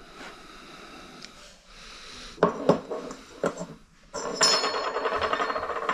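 Metal door-handle hardware being fitted into the door: a few sharp clicks and clinks, then about two seconds of rapid metallic rattling near the end.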